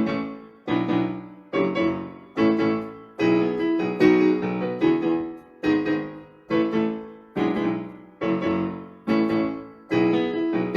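Piano accompaniment between sung lines: a chord struck roughly every beat, a little under a second apart, each one ringing and fading before the next.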